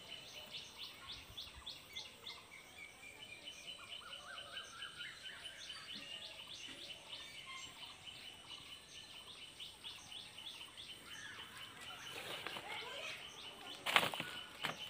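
Outdoor ambience of birds chirping rapidly and repeatedly, with a short run of rising calls about four seconds in. A single sharp knock near the end.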